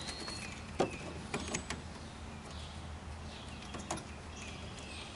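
A few separate light metal clicks and clinks of hand tools as a wrench and backer wrench are fitted to a solenoid mounting nut.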